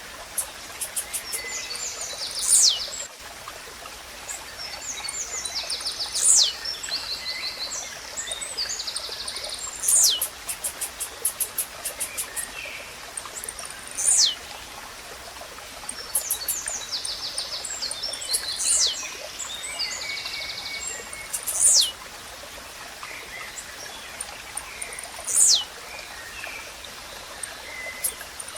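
Blue-black grassquit (tiziu) repeating its short, sharp song, a quick falling note, about every four seconds. Other birds chirp between the notes, over the steady trickle of a stream.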